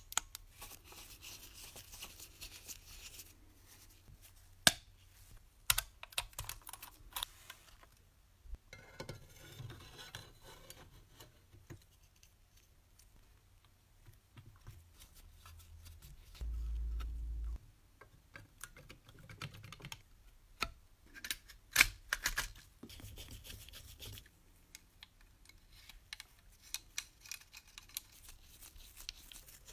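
Small clicks, taps and light scraping of metal parts being handled and fitted onto a pre-war model locomotive, with a few sharper clicks standing out. A brief low rumble lasts about a second around the middle.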